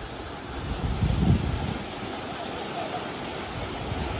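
Fast mountain stream rushing through a narrow rock channel: a steady hiss of white water, with a louder low rumble about a second in.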